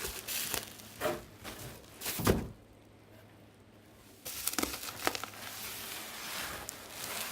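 Plastic bubble cushioning wrap being handled: rustling and crinkling with small clicks, and a single loud knock a little over two seconds in. After a quiet pause of a couple of seconds, the rustling resumes.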